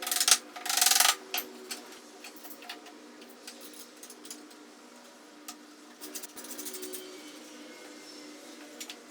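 Hand work with tools and wood: two loud rasping scrapes in the first second, then scattered light clicks and knocks, with another stretch of scraping about six seconds in, over a faint steady hum.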